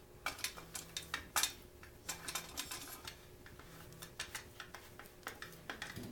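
Steel T-handle Allen wrench and bolt clicking and scraping against the billet aluminium radiator guard and frame while the bolt is fished into its hole: light, irregular metal taps, several a second.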